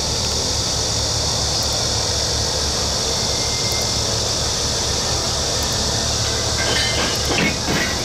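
Diesel locomotive running at low revs as it backs slowly up to a passenger carriage, with a steady low engine rumble. Near the end come a few sharp metallic clanks and short squeals as it closes up to the carriage for coupling.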